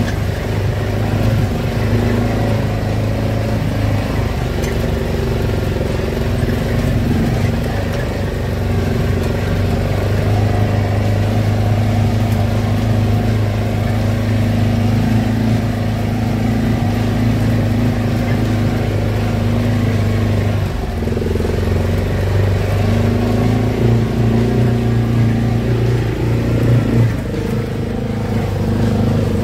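Vehicle engine running steadily while driving, a low even drone; the engine note dips and drops slightly in pitch about two-thirds of the way through, then picks up again.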